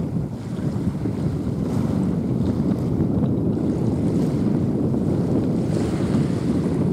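Wind buffeting the microphone on an open waterfront: a loud, low, rushing rumble that grows a little louder after the first second.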